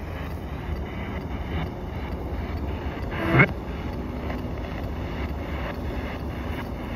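Spirit box radio scanner sweeping through stations, played through a small portable speaker: a steady hiss of static with faint choppy breaks, and a brief louder snatch of sound about three seconds in.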